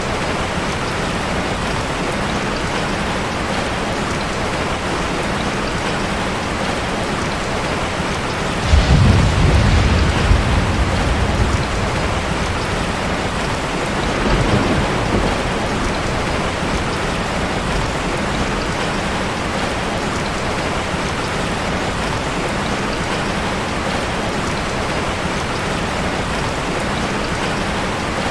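Heavy rain falling steadily. A loud, low thunderclap comes about a third of the way in and rumbles for a few seconds, and a weaker roll of thunder follows a few seconds later.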